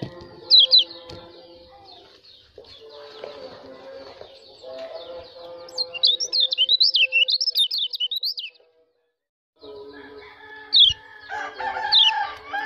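White-eye (pleci) giving sharp, high, rapid chirps, with a quick run of them about halfway through, over steadier lower tones. The sound cuts out for about a second, then the chirping resumes.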